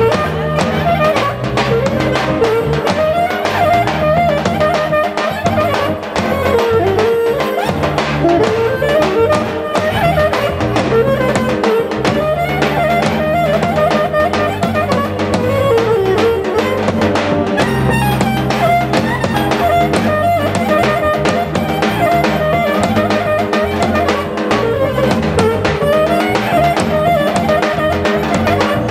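Live Greek folk dance music from a small band of clarinet, accordion and percussion: a winding melody played over a steady, driving drum beat.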